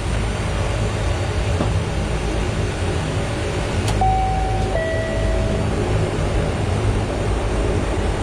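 Dash 8's twin turboprop engines running with a steady low drone. About four seconds in there is a click, then a two-note descending chime of about a second and a half.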